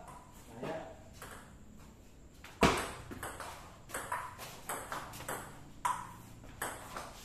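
Table tennis rally: the plastic ball clicking off the paddles and the table in a quick, even back-and-forth rhythm, each click with a short ring. The rally opens with one loud smack about two and a half seconds in.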